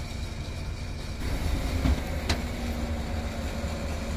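Heavy recovery truck's diesel engine running steadily under crane work, with metal clanks about two seconds in, the sharpest one a moment later, as the rusted armoured-car hull swings on its lifting chains.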